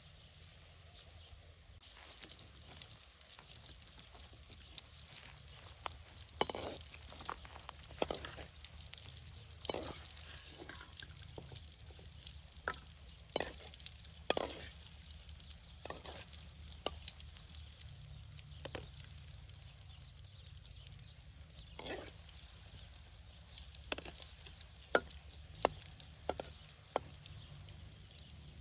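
Pakora batter deep-frying in hot oil in a wok: a steady sizzle that swells about two seconds in as the batter goes in, with frequent sharp pops and clicks as a ladle turns the fritters.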